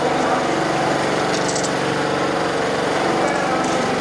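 A motor running steadily with an even, unchanging drone. A couple of faint high clicks come about a second and a half in.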